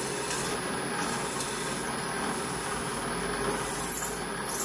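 Bench pillar drill running steadily, a small twist bit cutting through a soft copper boiler barrel. There are a few louder, sharper moments near the end.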